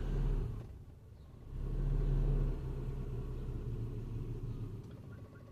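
Car running, a low rumble heard from inside the cabin. It swells twice, briefly at first and again about two seconds in, then settles lower and fades toward the end.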